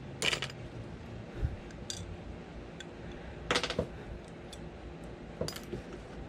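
Light clicks and clinks of small jewelry pieces being handled and touched to a magnet, a test for magnetic (non-precious) metal. There are a few separate clicks, with a small cluster about three and a half seconds in.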